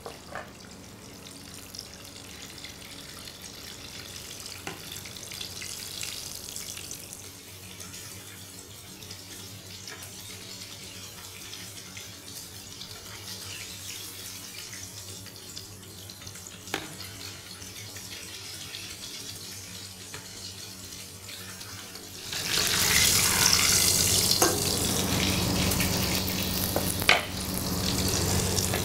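Breadcrumbed potato croquettes deep-frying in a pot of oil at 170 °C, a steady sizzle. About 22 seconds in, a much louder steady hiss suddenly takes over.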